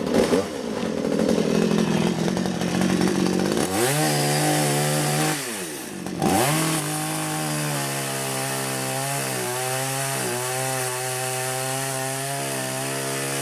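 Full Boar 53cc two-stroke petrol chainsaw cutting through wood for the first few seconds. The engine pitch then rises, drops sharply and climbs back about six seconds in. After that it runs steadily at high speed with a few slight dips in pitch.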